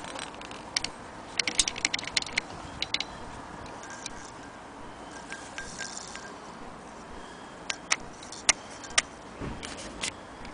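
Singer 66K hand-crank sewing machine's metal parts clicking as the mechanism is worked by hand. A quick run of clicks comes about a second and a half in, and a few spaced clicks follow near the end.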